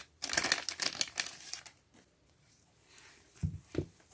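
Small clear plastic bag crinkling in the fingers as it is opened to get at a sheet of stickers, for about a second and a half; then quiet, and two soft low thumps near the end.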